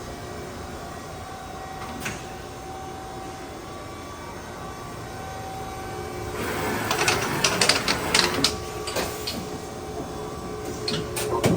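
LVD Strippit U-1000 XP CNC turret punch press running: a steady machine hum with a few held tones, then about halfway through a rapid run of sharp punching strokes, about four a second, and a few more strokes near the end.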